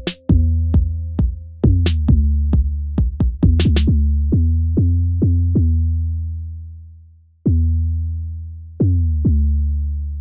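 Instrumental electronic hip-hop beat with a deep bass line and drum-machine hits. After about four seconds the beat thins out and a held bass note fades almost to nothing, then the bass comes back in with a hit about seven and a half seconds in.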